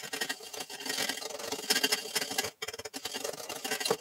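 Wire whisk beating creamed butter, sugar and egg yolk in a plastic bowl: rapid clicking and scraping of the wires against the bowl, with a short break about two and a half seconds in.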